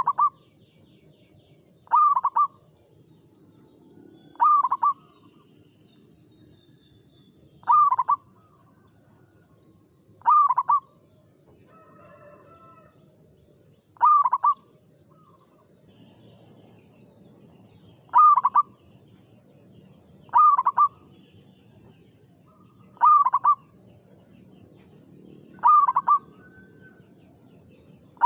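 Zebra dove (Indonesian local perkutut) cooing its short, rhythmic phrase over and over, about every two to three seconds, ten times or so. Faint high chirps from other small birds sound in the first few seconds.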